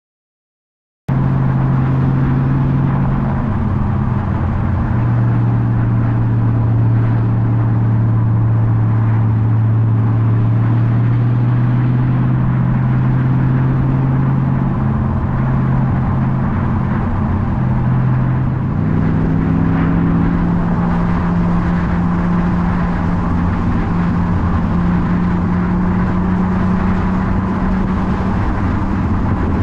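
Hot-rod roadster's engine running steadily at cruising speed, heard from the outside of the open car with road and wind noise; the sound cuts in suddenly about a second in, and the engine note steps up in pitch about two-thirds of the way through.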